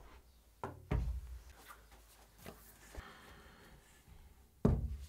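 An iPad and Magic Keyboard cases being handled and fitted together: a series of soft knocks and thumps, the loudest about a second in and near the end, with a light click around three seconds in.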